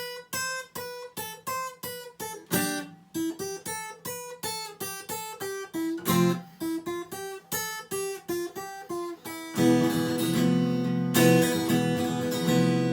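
Acoustic guitar playing an instrumental break in a song: a run of single picked notes at an even pace, then full strummed chords from about ten seconds in.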